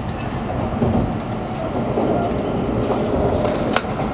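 Cabin noise inside a Shinkansen Nozomi express running at low speed, a steady rumble and rattle of the car on the track. A few brief faint squeaks are heard, and a sharp click comes near the end.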